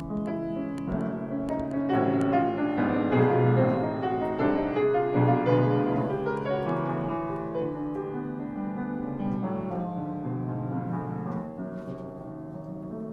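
Piano music: a piece of many overlapping notes that swells louder about two seconds in and softens toward the end.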